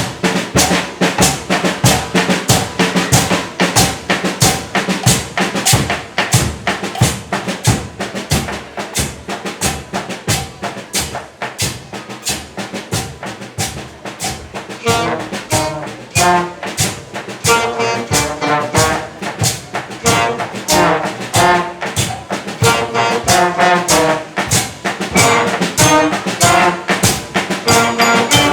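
Children's school marching band playing: drums beat a fast, steady rhythm, joined by brass playing a melody that stands out more strongly from about halfway.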